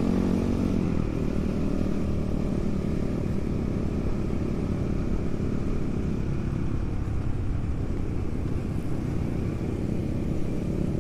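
Supermoto motorcycle engine running steadily while being ridden along the road, with a brighter, higher note in the first second before it settles into an even drone.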